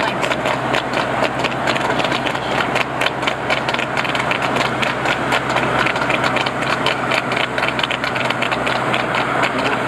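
A vehicle engine running steadily under a rapid, even clatter of a harness-racing trotter's hooves striking the tarmac as it pulls a sulky at speed.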